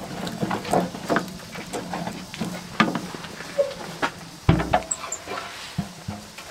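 Split firewood knocking and shifting inside the firebox of a Mt.SUMI AURA wood stove as the logs are pushed into place, with short crackles. About four and a half seconds in, the stove's glass door swings shut with a low thud, followed by a click of the latch.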